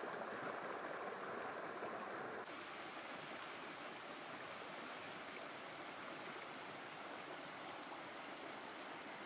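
Rushing stream water flowing over rocks, a steady rush. About two and a half seconds in it becomes a slightly quieter, hissier rush.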